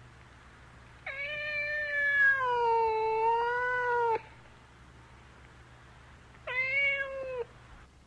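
Cat meowing: one long, drawn-out meow of about three seconds that sags and wavers in pitch, then a shorter meow of about a second near the end.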